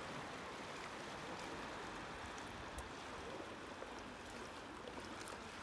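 Calm sea water lapping gently around rocks at the shoreline: a steady, soft wash with no breaking waves.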